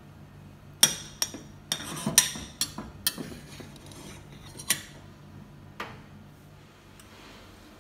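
Slotted stainless steel spoon scraping and knocking against a stainless steel saucepan while fluffing cooked quinoa: a run of sharp clinks and scrapes, most of them in the first few seconds, the last about six seconds in.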